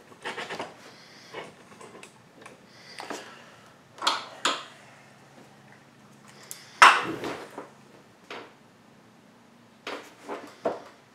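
Small hard objects being handled: scattered clinks and knocks, the loudest about seven seconds in, over a faint steady low hum.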